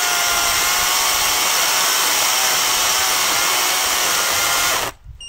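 Parkside PKSA 40-Li A1 dual-battery cordless chainsaw cutting through a thick, knotty log, its electric motor whining steadily under load on the smaller 2 Ah batteries. It stops abruptly about five seconds in.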